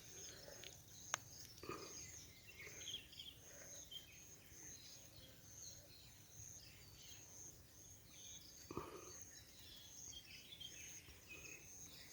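Near silence: faint outdoor ambience with a thin high chirp repeating about twice a second and scattered faint chirps, a single sharp click about a second in and a soft knock near the end.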